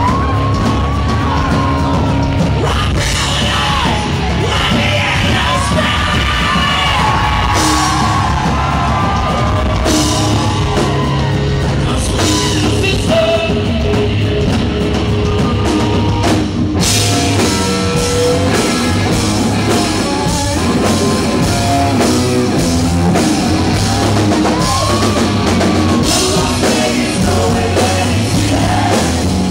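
A live rock band playing: electric guitars and a drum kit, with a lead singer's vocal lines in the first several seconds and again near the end.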